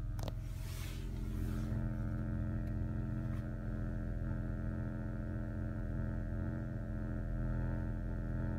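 Steady buzz from the passenger-side front speaker panel of a 2005 Acura RL, heard inside the cabin, present with the car in reverse and absent in park. A brief click sounds just after the start.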